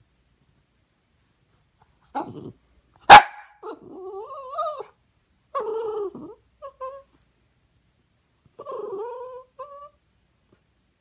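Small dog vocalising in complaint: a low growl, one sharp bark about three seconds in, then whiny, moaning grumbles that rise and fall in pitch, coming and going until near the end. It is a jealous dog's protest at sharing attention with the cat.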